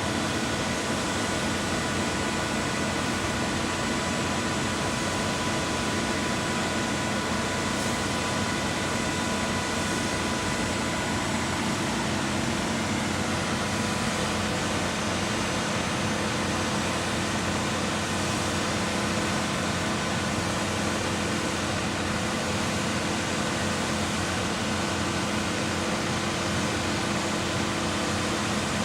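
Concrete pump machinery running with a steady, even drone and a few constant tones, unchanging throughout.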